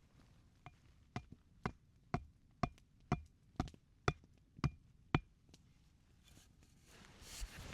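Repeated striking: about ten sharp, evenly spaced knocks, roughly two a second, each with a brief ringing tone, then a rustle near the end.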